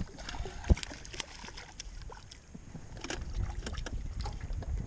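Small fishing boat sounds while a hooked fish is reeled in: irregular knocks and clicks over a low rumble of wind and water, getting busier in the last couple of seconds.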